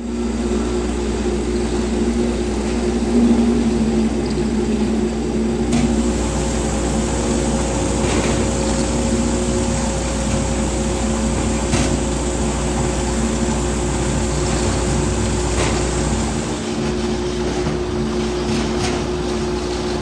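Exeter Engineering AccuVision 360 potato grader running: its roller conveyor gives a steady mechanical hum with several held tones. A few faint clicks are scattered through it.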